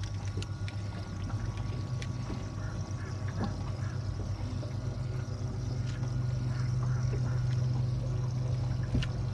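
A bass boat's live-well pump running with a steady low hum as water pours and trickles into the live well. A few light clicks and knocks of handling come over it, the sharpest near the end.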